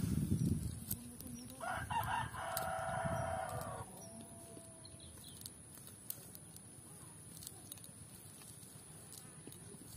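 A rooster crows once, one long call of about two seconds starting a couple of seconds in. Low rumbling thuds come just before it.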